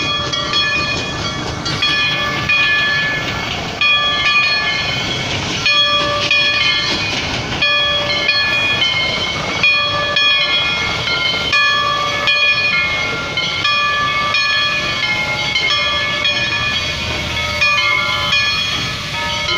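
Steam locomotives moving slowly past: steam hissing over the running gear, with several steady high tones that start and stop every second or so.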